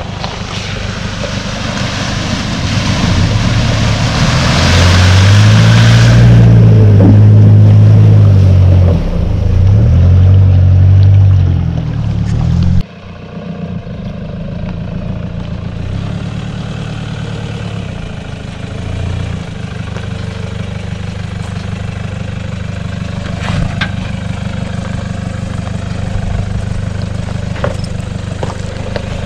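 Off-road 4x4's engine being revved up and down repeatedly under load, loud for the first dozen seconds. About thirteen seconds in, the sound drops suddenly to a quieter, steadier engine note with a few lighter revs.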